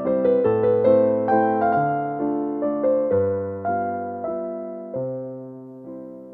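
Background music: a slow, gentle piano melody over lower notes, the phrase fading away near the end.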